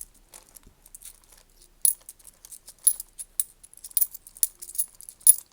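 British 10p coins clinking and clicking against each other as a handful is sorted and turned over by hand: a string of sharp metallic clinks, louder ones about two, three, four and five seconds in.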